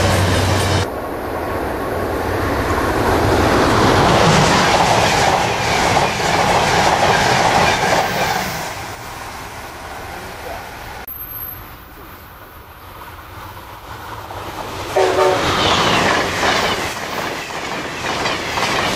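Amtrak passenger trains passing at speed on the electrified Northeast Corridor: a loud rush of wheels on rail and wind as a train goes by and fades away. Later a short train horn blast sounds and another train of passenger coaches rushes past close by.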